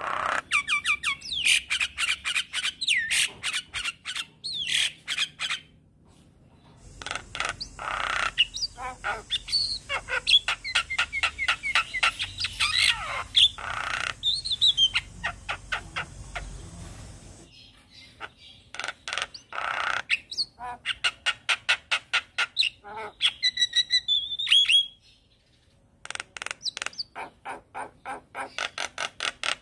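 Javan myna in full song: long runs of rapid chattering notes mixed with harsh squawks and whistles. The song comes in three bouts, broken by short pauses about six seconds in and again about twenty-five seconds in.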